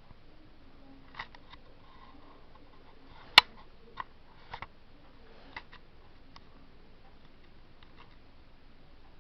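A few sharp clicks and taps in a quiet small room, a loud single click about three and a half seconds in and smaller ones scattered around it.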